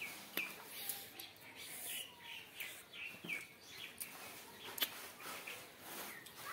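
A series of short, high-pitched chirps from a small animal, each falling in pitch and repeating about every half second, with a few sharp clicks between them.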